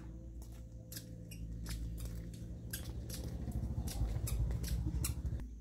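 Irregular sharp clicks and taps over a low rumble; the rumble grows louder in the second half and cuts off suddenly near the end.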